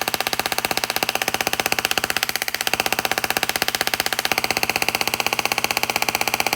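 Miniature Class-E dual-resonant solid-state Tesla coil firing its arc, a loud buzz made of rapid, evenly spaced pulses set by its interrupter. It cuts off abruptly at the end.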